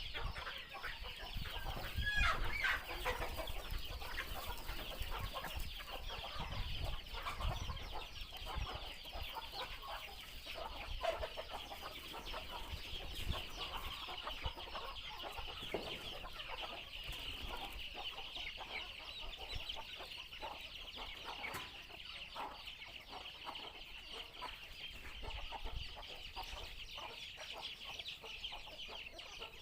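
Free-range desi (country) chickens clucking, over a steady, dense chorus of high-pitched chirping from other birds, with a few louder calls in the first few seconds.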